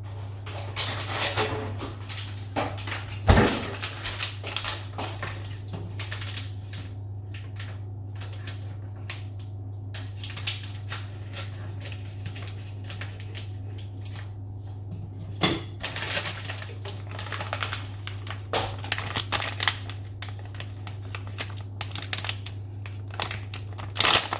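Kitchen handling sounds: irregular rustling, crinkling and light clicks, with a sharp knock about three seconds in and another about halfway. A steady low hum runs underneath.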